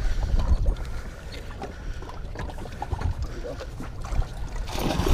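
Wind buffeting the microphone and water lapping against a boat's hull, getting louder and hissier near the end.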